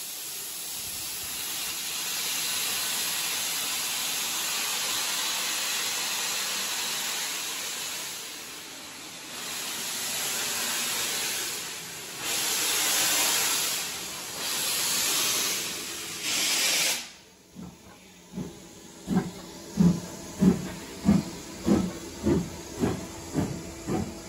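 BR Standard Class 2MT steam locomotive hissing steam at a standstill, with several surges of hiss shortly before it moves. About three-quarters of the way through it starts away, and its exhaust beats quicken to about two a second as it pulls out with its train.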